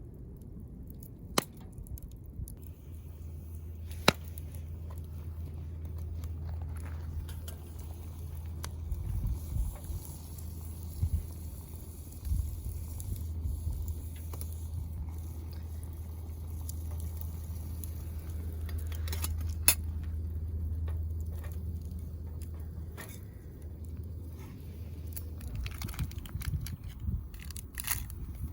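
Wood campfire crackling, with a few sharp pops spread through and quicker crackles near the end, over a steady low rumble.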